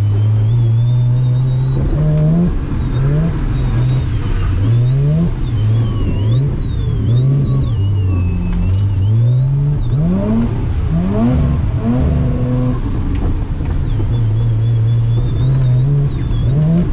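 Drift car's engine revving hard in repeated rising pulls, about eight over the stretch, with tyres squealing in a wavering high pitch while the car slides.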